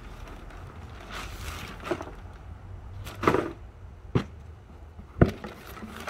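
Lightweight ABS plastic door panels being handled: four short knocks and clacks, the loudest about five seconds in, one in the middle a brief scraping rustle, over a low steady hum.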